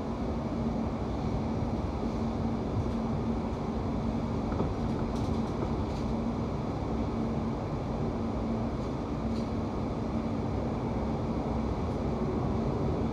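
Running noise heard inside a Class 710 electric multiple unit: a steady rumble of wheels on rail under a constant low hum, with a few faint clicks.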